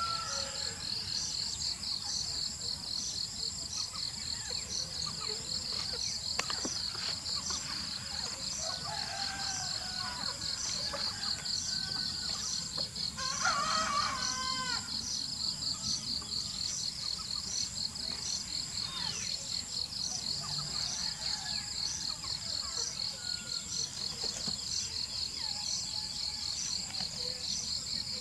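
Insects trilling steadily and high, with a regular pulsing beat. A rooster crows once about halfway through, the loudest sound, and faint bird calls come and go.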